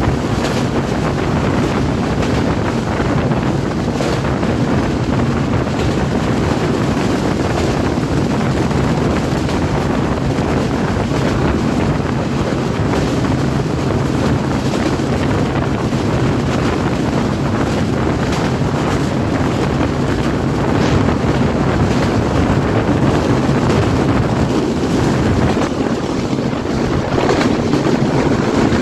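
Wind buffeting a microphone held out of the window of a fast-moving passenger train, over the steady rumble of the coach running on the rails. It grows a little louder near the end.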